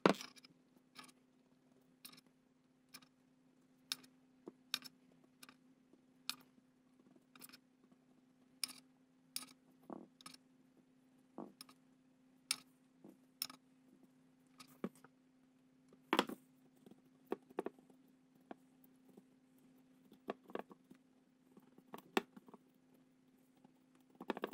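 A brush dabbing paint stripper onto die-cast metal toy truck parts: a run of light, sharp taps and clicks, roughly one a second, with a louder knock about 16 seconds in, over a faint steady hum.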